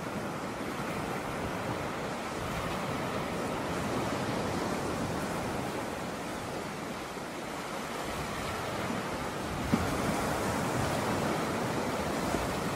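Steady wash of ocean waves and wind, with one short sharp knock about three-quarters of the way through.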